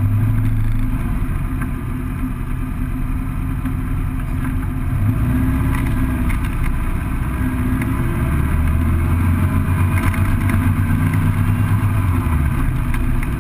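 Dune buggy's 2180cc air-cooled VW flat-four engine pulling hard down a quarter-mile drag strip, heard from the open cockpit. The note dips and climbs again a few times as it goes up through the gears.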